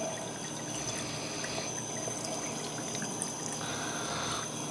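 Thin stream of tap water running steadily into a kitchen sink, trickling over a puppy being rinsed.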